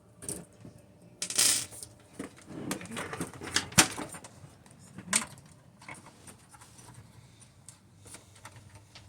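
Irregular clicks, taps and scrapes of hard plastic and metal parts being handled as a desktop computer is taken apart by hand, with a louder scrape about a second and a half in and a sharp click near four seconds.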